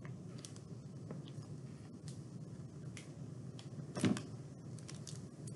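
Faint handling noise of a small plastic clay cutter and paper sheet being worked on a wooden table: a few soft clicks and one sharper knock about four seconds in, over a low steady room hum.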